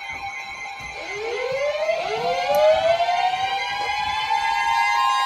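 Several sirens winding up about a second in, their rising pitches overlapping and levelling off over a steady tone.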